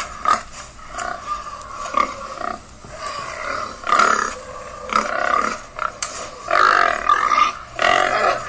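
Pigs grunting: a string of short, irregular calls, several of them louder than the rest.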